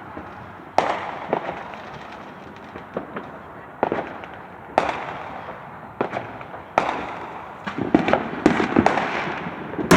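Aerial fireworks going off: separate sharp bangs, each trailing off in a rumble, every second or so, then a quicker flurry of pops and crackles near the end.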